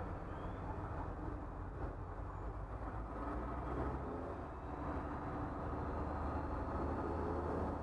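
School bus engine running under way, heard from inside the cab as a steady low rumble. From about halfway through it grows a little louder and rises in pitch as the bus picks up speed.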